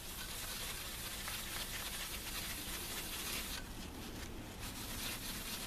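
Toilet paper dampened with isopropyl alcohol rubbing and scrubbing on a CPU, wiping off old thermal paste, with a brief let-up about three and a half seconds in.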